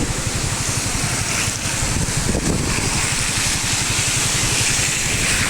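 Steady rushing of the flooded Sutlej river running full, with wind buffeting the microphone in a low, fluttering rumble.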